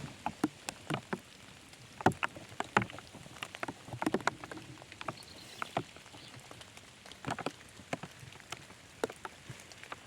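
Irregular sharp knocks and taps, a few louder than the rest, over a faint steady hiss of rain.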